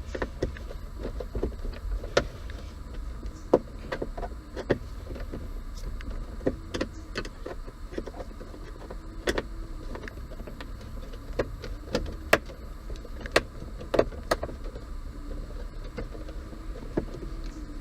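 Scattered, irregular clicks and taps of a hand tool working the screws out of a pickup's plastic dashboard trim around the radio.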